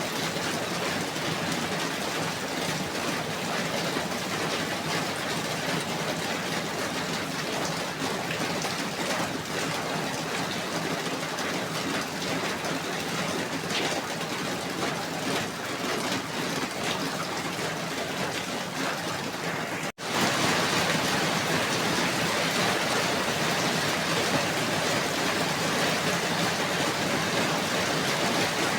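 Steady, dense rainfall. About two-thirds of the way through it drops out for an instant and comes back a little louder.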